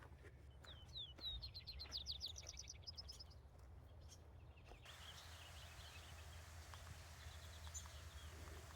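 A songbird singing faintly: a fast run of repeated high chirping notes lasting about two and a half seconds, then a few weaker notes over a soft steady hiss.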